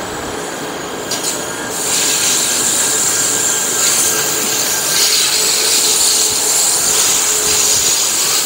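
Train moving along the track: a steady rush of wheel and rail noise with a faint whine, growing louder and brighter about two seconds in.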